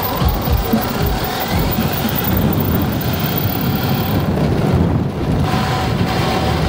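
Radio-controlled car carrying the camera, driving over asphalt: a rattling rumble from its wheels, with its motor whine rising about two seconds in. Music with a beat fades out in the first second.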